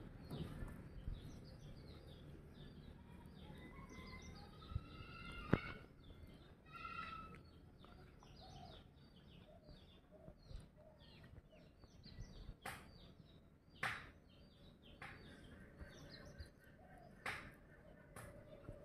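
Birds chirping and calling, with short whistled notes, and a few sharp clicks.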